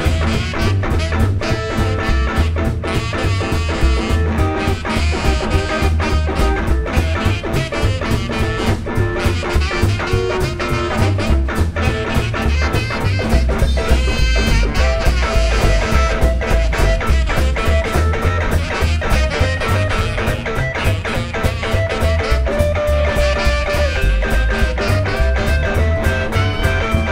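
Live blues band playing an instrumental passage with no singing: electric guitar, upright bass and drum kit, with an even, driving beat.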